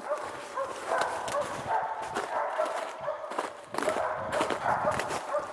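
Hunting dogs barking over and over at a distance, with crunching footsteps through leaves and brush.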